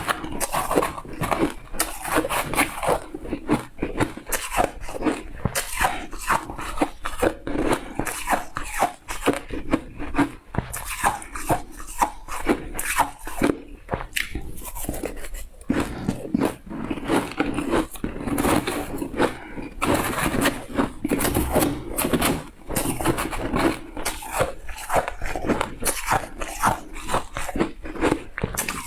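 Close-miked crunching and chewing of shaved ice: rapid, irregular crisp bites and crunches, one after another.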